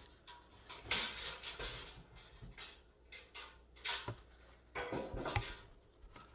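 A hand-squeezed grommet punch clacking and crunching as its metal jaws punch through thick canvas, with the fabric rustling between strokes. There are sharp clacks about a second in, around four seconds, and two close together a little after five seconds.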